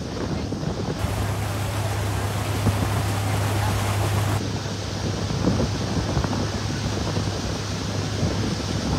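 Wind buffeting the microphone on a moving boat, over the steady low drone of the boat's motor and the wash of water along the hull.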